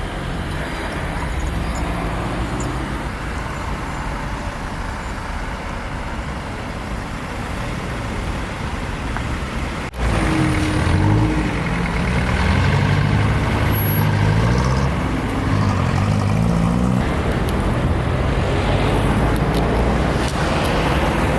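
Road traffic: cars and heavier vehicles such as trucks or buses driving past on the street, a steady mix of engine and tyre noise. About ten seconds in there is a sudden break, after which a louder low engine drone with shifting pitch takes over.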